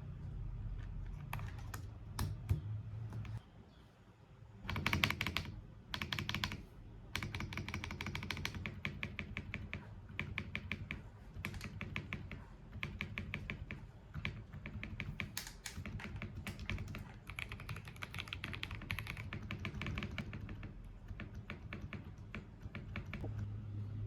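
Typing on a Tecware Spectre 75 mechanical keyboard with Cocoa Brown switches. A few single key clicks come first, then after a short pause come runs of fast key clacks, several a second, broken by brief pauses.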